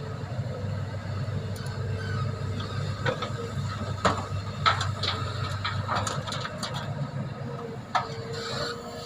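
Heavy machinery engine running steadily at a low rumble, with several sharp knocks or clanks in the middle and near the end.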